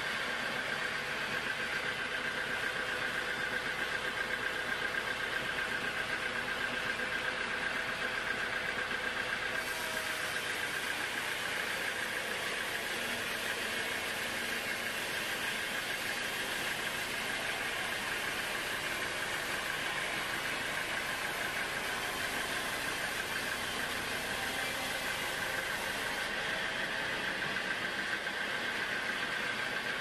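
Band sawmill running with its blade in a teak slab: a steady machine drone with a high, even whine from the blade. A brighter hiss comes in about a third of the way through and drops away near the end.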